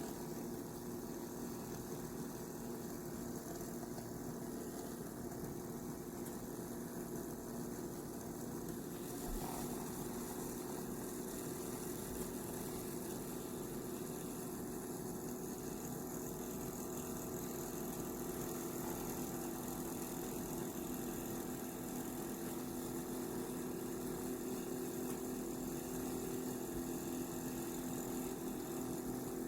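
Ninja Pod & Grounds single-serve coffee maker running with a steady electric hum made of two low tones, a little louder after about nine seconds.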